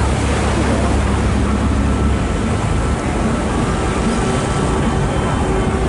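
Harbour tour boat's engine running with a steady low rumble under an even rushing noise of wind and water, heard from on board.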